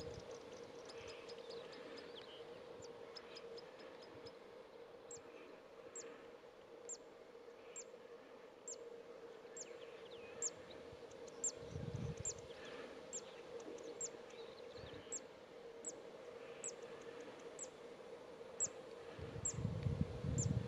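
Outdoor ambience: a short, very high chirp repeated about once a second over a steady low hum, with low wind rumbles around twelve seconds in and again near the end.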